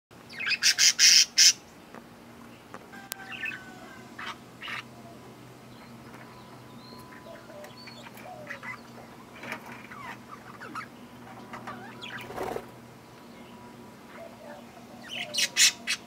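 Flock of budgerigars calling: a loud, rapid burst of harsh squawks just after the start and another near the end, with softer chirps and chatter between.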